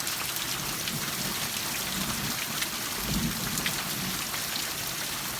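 Heavy rain pouring down steadily with hail mixed in, a dense hiss with scattered sharp ticks of hailstones striking, and a brief low thud about three seconds in.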